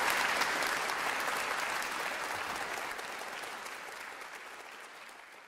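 Concert audience applauding, fading out gradually.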